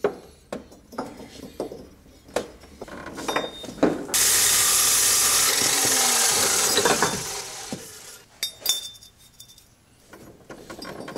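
Ironton 14-inch dry-cut chop saw cutting steel, a loud hiss that starts suddenly about four seconds in and fades out about four seconds later. Before and after it, metal parts clink and knock as a fabricated engine-mount bracket is handled and test-fitted.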